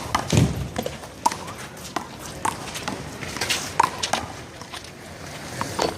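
One-wall handball rally: the small rubber ball struck by hand and slapping off the wall and pavement, a string of sharp slaps at uneven spacing.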